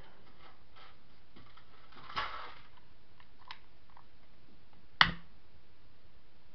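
Handling noises from a cardboard tube and metal pan being set up: a brief scuffing scrape about two seconds in and one sharp click about five seconds in, the loudest sound, over a faint steady hiss.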